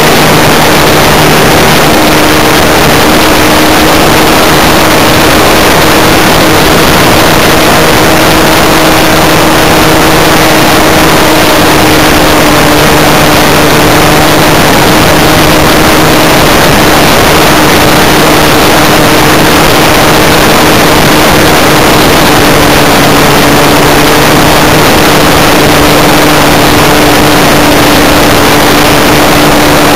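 Magnum .91 four-stroke glow engine of a 1/4-scale Spacewalker RC airplane running steadily in flight, heard from a camera on the plane itself, so very loud under a dense rush of air. Its pitch eases down slightly about two-thirds of the way through.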